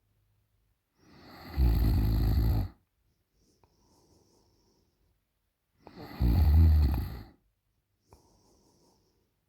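A woman snoring loudly in her sleep: two long snores about four and a half seconds apart, each building up quickly, holding for over a second and stopping short, with a faint breath after each.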